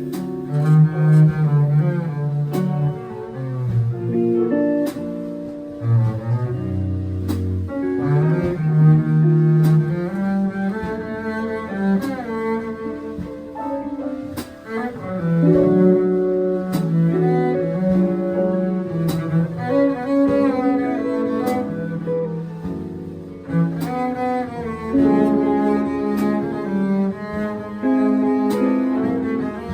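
A jazz quartet of guitar, piano, bass and drums playing, with low bass notes the strongest part and sharp drum strokes falling at a fairly even pace.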